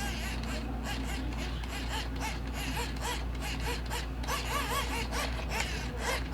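Hand crank of an EoxSmile CR1009 emergency radio being turned, its geared dynamo giving a rhythmic whine that rises and falls a few times a second, with light mechanical clicking.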